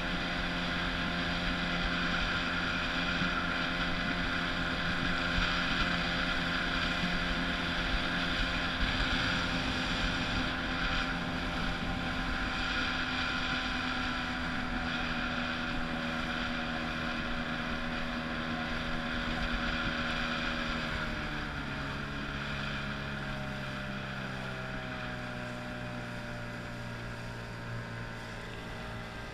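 15 hp outboard motor pushing a small boat at a steady cruise, with water and wind hiss. About two-thirds of the way through, the engine note drops in pitch and gets a little quieter as the motor is throttled back.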